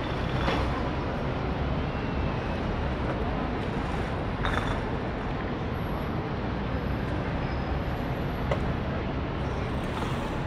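Steady city street traffic: a constant low rumble of passing vehicles, with two brief clatters, about half a second in and about four and a half seconds in.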